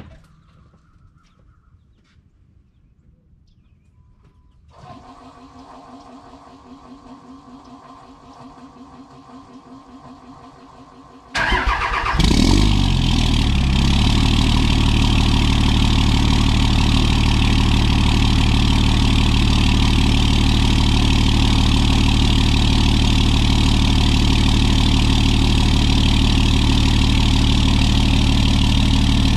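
Dodge Ram pickup's Cummins diesel engine cold-starting, heard at the tailpipe. A faint hum comes in about five seconds in. Then the starter cranks for about a second, the engine catches, and it settles within a couple of seconds into a loud, steady diesel idle.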